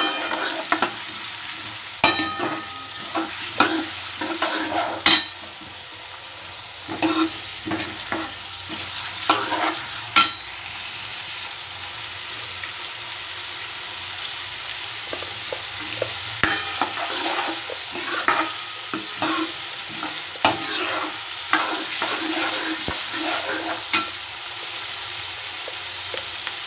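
Diced onions sizzling in hot oil with mustard seeds and cumin in a metal kadhai. A steel ladle stirs them, scraping and clicking against the pan in spells, with a stretch of plain sizzling about halfway through.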